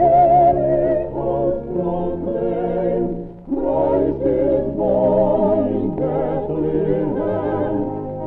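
Old-time recorded music: voices singing long notes with vibrato, choir-like, over instrumental accompaniment. It sounds muffled, with no highs, as if playing from another room, and dips briefly about three and a half seconds in before the singing resumes.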